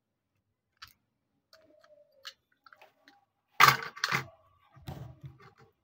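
Handling noise from working on amplifier wiring with a utility knife and pliers: a click and scattered small ticks, then two short, louder rustling clatters about three and a half seconds in, followed by a softer one.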